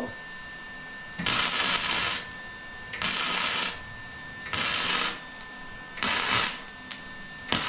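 Wire-feed welder arc crackling on steel tubing in short stitch-weld bursts. There are four bursts of about half a second to a second each, with short pauses between them, and a fifth begins near the end.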